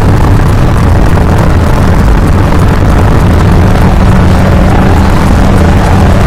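Loud, steady low rumbling drone with a few held low hums, unchanging throughout.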